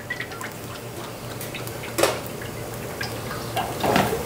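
Cooking oil poured in a thin stream from a plastic jug into a steel frying pan: a soft trickle with small drips, over a low steady hum. A sharp knock comes about two seconds in, and another clatter near the end.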